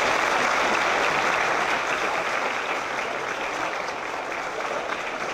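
A large audience applauding, a dense steady clapping that slowly dies down toward the end.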